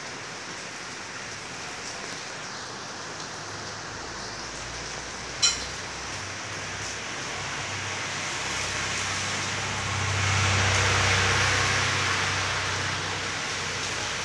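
Heavy rain falling steadily on the street and shop front, a continuous hiss. A single sharp click comes about five seconds in, and the noise swells louder with a low rumble for a couple of seconds around ten seconds in.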